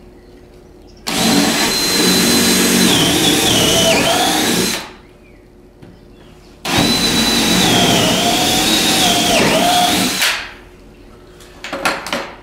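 Cordless drill boring two lag-screw holes into the wall, in two runs of about four seconds each; its motor whine sags in pitch as the bit bites in and bogs under load. A few light clicks near the end.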